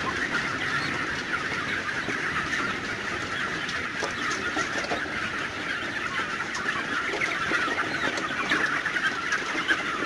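A large flock of young parent-breeder chickens calling all at once: a dense, steady chatter of many short, high cheeps and clucks. The birds are hungry and excited as feed is lowered into their feeders at feeding time.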